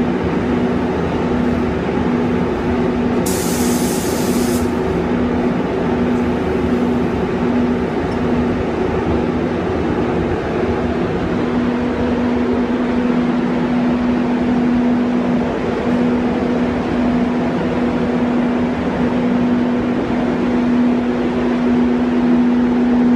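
Paint spray booth's ventilation running with a steady hum and rushing air. About three seconds in comes a short hiss of compressed air, about a second and a half long.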